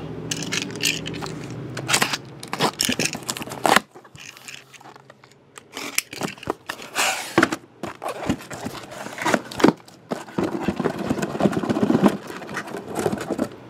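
Cardboard shipping case being opened and handled: the taped seam worked open and the case pulled apart, a run of rustles, scrapes and sharp irregular knocks.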